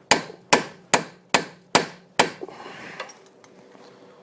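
Six hammer blows, about two and a half a second, on a Subaru's front suspension to work the ball joint loose from the steering knuckle, followed by a short scrape.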